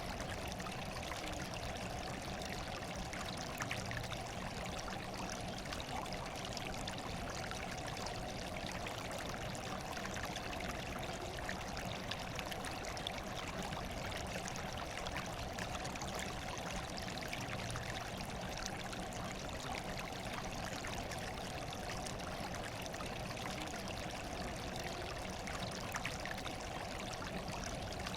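Steady running water, an even, unchanging rush with a few faint ticks through it.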